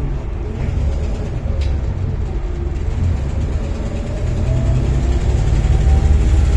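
Volvo B7TL bus's turbocharged diesel engine pulling hard, with turbo whine. The pitch slowly rises and falls, and it gets louder towards the end.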